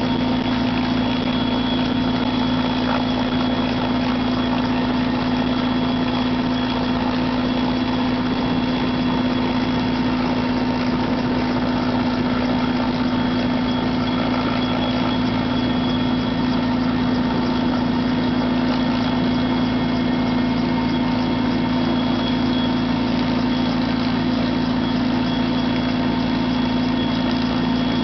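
Helicopter engine and rotor running steadily: an unchanging low drone with a thin high whine over it.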